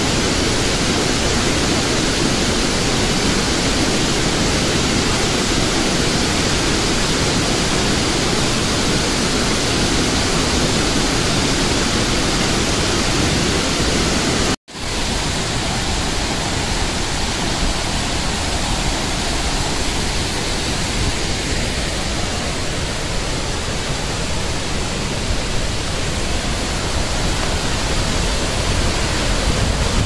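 Waterfall and white-water mountain stream rushing loudly and steadily over boulders. The sound cuts out for an instant about halfway through, then carries on.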